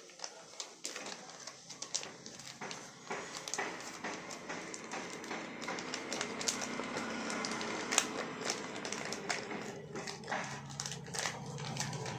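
Packaging of a new soldering iron being handled during unboxing: a run of irregular clicks and rustles, with a steady pitched sound underneath from about four seconds in.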